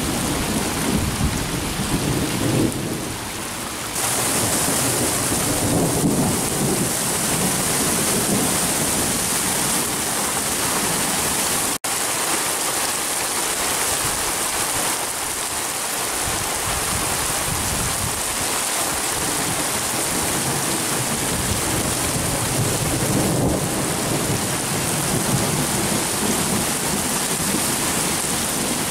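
Thunderstorm: steady rain falling with low rolling thunder rumbling, strongest in the first few seconds and swelling again a few times later.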